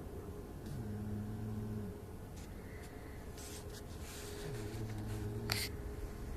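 Snoring: two slow, low snores, each lasting a little over a second and about four seconds apart. A short sharp click comes just as the second snore ends, over a faint steady hum.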